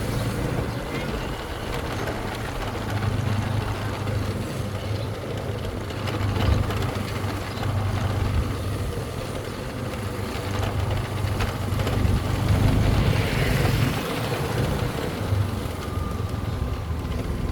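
Motorcycle engine running steadily while riding, a constant low hum under road and wind noise.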